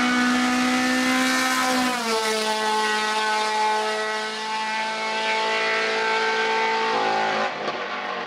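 VW Golf Mk2 hill-climb race car's engine running hard at high, nearly steady revs, with a brief dip in pitch about two seconds in. Near the end the engine note breaks up and cuts out as the engine fails and blows smoke, and the sound starts to fade.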